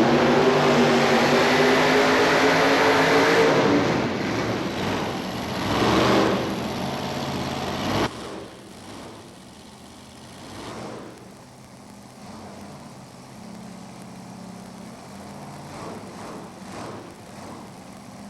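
Modified pulling tractor's engine running hard under the load of the sled, its pitch sagging slightly as it bogs down. It eases off after about four seconds and cuts off abruptly about eight seconds in, leaving a faint low background.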